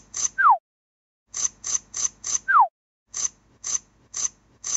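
Scissor-snipping sound effect: runs of four quick crisp snips, about three a second, each run ending in a short falling whistle. The run repeats almost identically.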